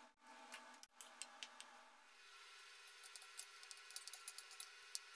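Faint, scattered crackles and pops of hot oil as fish cakes deep-fry in a wok, coming more often in the last two seconds.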